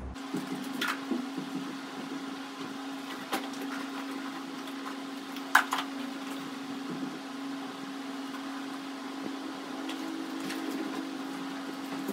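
A steady low motor hum, with scattered knocks and rustles of clothes and bags being handled during packing; the sharpest knock comes about halfway through.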